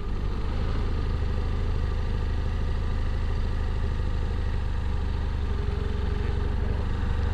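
Motorcycle engine running steadily at low speed, an even low hum with no change in revs.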